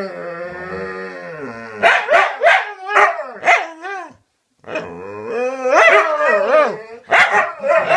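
Two dogs 'talking' back and forth: a long held howling whine, then a run of short yelps that bend up and down in pitch, more drawn-out howling, and two sharp barks near the end.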